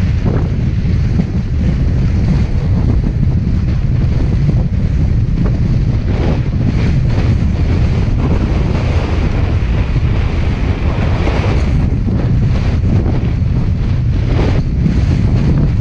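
Strong wind buffeting the microphone, a loud low rumble that runs on without a break.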